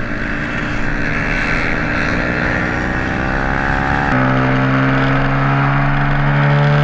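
Racing motorcycle engine running hard, its pitch climbing steadily. About four seconds in it changes abruptly and then holds a strong, steady note.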